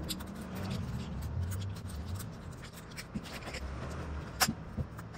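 Hand vegetable peeler scraping the skin off a butternut squash in short repeated strokes, over a steady low hum. It ends in a sharp knock near the end as something is set down on the cutting board, followed by a couple of lighter taps.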